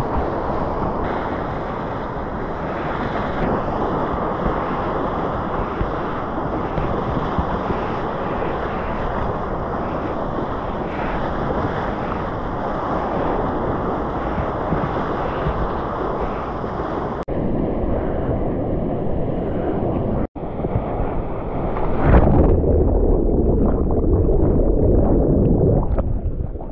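Rushing whitewater of a standing river wave heard from a surfboard riding it, with wind buffeting the action camera's microphone. The rush breaks off abruptly twice past the middle, then comes back louder and heavier near the end.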